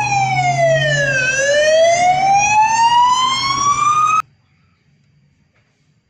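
Fire engine siren on a fire service command support unit wailing: one slow sweep that falls in pitch for about a second, then rises again for about three seconds, over a low hum. It cuts off suddenly about four seconds in.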